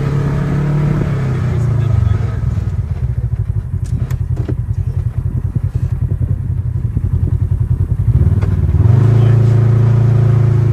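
Side-by-side UTV engine running along a dirt trail. After about two seconds it drops off throttle into a rapid, even pulsing for several seconds, with a couple of clicks. Near the end it picks up again to a strong steady drone.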